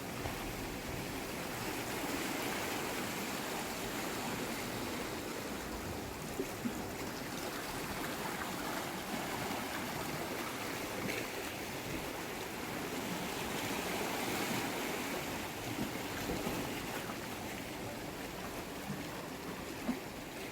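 Sea water washing and surging over shoreline rocks: a steady rush that rises and falls with the swell, with a few small knocks.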